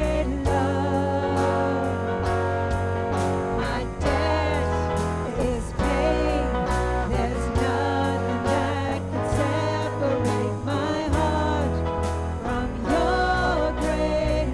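Worship song: sung vocals over a band with guitar, a steady beat and sustained chords.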